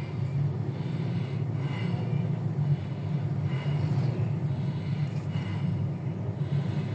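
Car driving in slow traffic, heard from inside the cabin: a steady low rumble of engine and road noise, with a few soft hissing swells of passing traffic.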